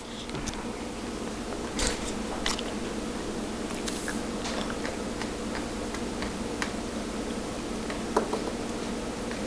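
Hand whisk beating crepe batter in a plastic bowl: soft wet stirring with scattered clicks and scrapes of the wires against the bowl, over a steady background hum.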